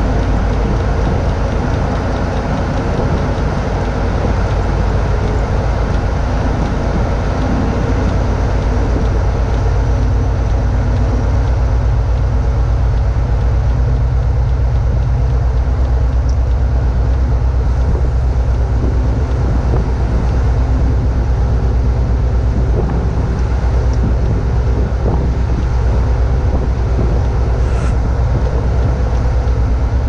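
Heavy diesel engine running steadily: a loud, even, low drone.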